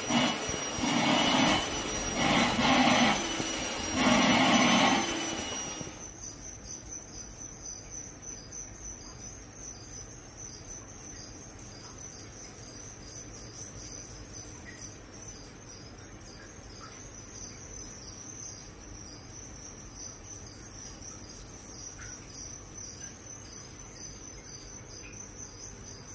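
A vacuum cleaner running, its sound swelling and dipping as the hose nozzle is worked over a cat, then stopping about six seconds in. After that comes a quiet, steady high-pitched chirping of insects.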